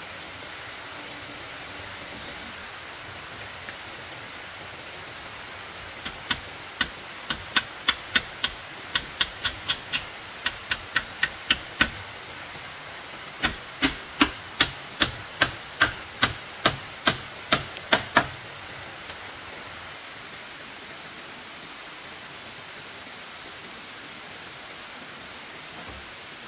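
Two runs of quick, sharp strikes from a hand tool, about three a second, the first lasting about six seconds and the second about five after a short pause, over a steady rushing hiss.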